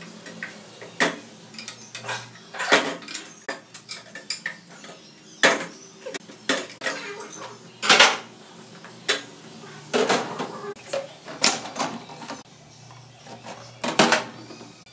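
Steel parts and hand tools of a Renault JF017 CVT gearbox clinking and knocking as it is stripped down: uneven sharp metallic clicks, the loudest about eight seconds in and again near the end.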